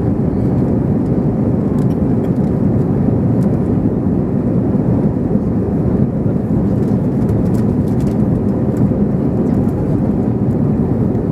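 Steady cabin noise of an Airbus A321ceo airliner during its climb: jet engines and rushing air make an even, low rumble with a faint steady hum.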